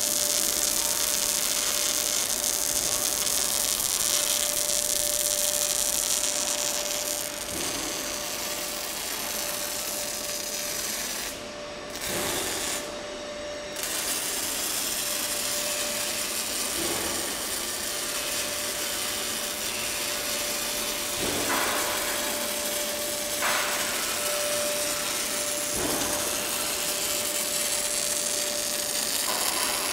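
MIG/MAG welding arc on steel, a steady dense hissing that drops out briefly twice about halfway through.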